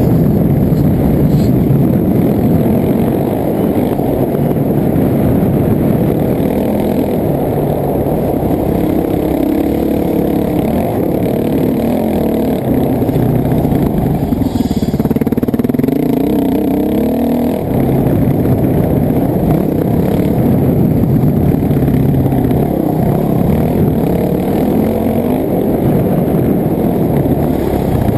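Off-road dirt bike engine running hard, its pitch rising and falling as the throttle is opened and closed.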